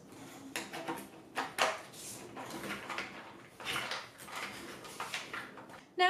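Plastic wet/dry vacuum extension wands, hose and floor nozzle being fitted together and handled: a scatter of light plastic knocks, clicks and scrapes.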